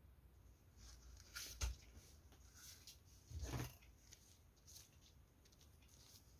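Quiet handling of parcel packaging: scattered faint rustles and light clicks, with a sharper click about a second and a half in and a longer rustle a couple of seconds later.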